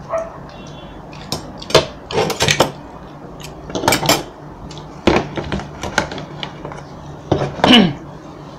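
Paper and cardboard fast-food packaging being handled: irregular crinkles, rustles and light knocks as a paper bag and burger boxes are rummaged through and a burger is taken out, over a low steady hum.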